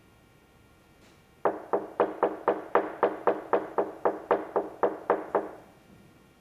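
A fast, even series of about sixteen sharp knocks, roughly four a second, starting about a second and a half in and stopping near the end: a sound effect being performed for recording.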